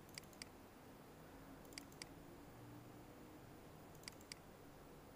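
Three double-clicks of a computer mouse button, each a pair of sharp clicks about a quarter second apart, over a very quiet room.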